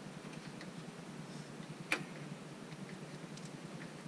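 Light scattered clicks and taps of hands working on parts in a Jeep's engine bay, with one sharper click about two seconds in, over a steady low hum.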